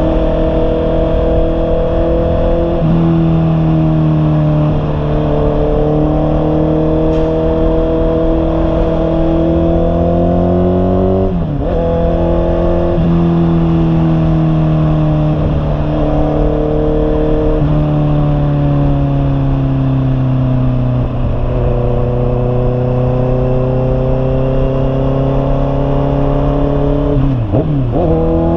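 Honda CB650R's inline-four engine running through an aftermarket Imba Pure muffler while riding, its exhaust note slowly changing pitch, with several breaks where the pitch drops and picks up again as the rider changes gears.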